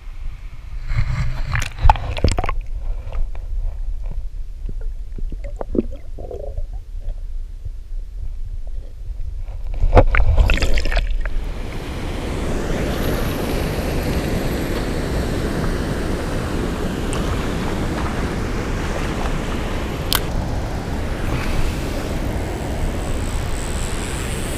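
Splashing in the shallows as a bowfin is let go by hand, over a muffled low rumble, with a couple of louder splashes about two and ten seconds in. From about eleven seconds in, a steady rush of water pouring below a spillway.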